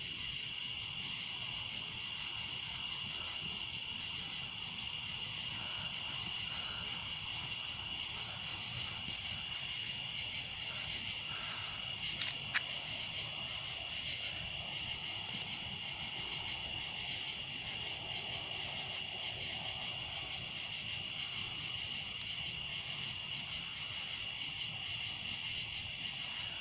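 Chorus of crickets and other insects: a steady, high-pitched, finely pulsing trill that never stops. There is one brief click about halfway through.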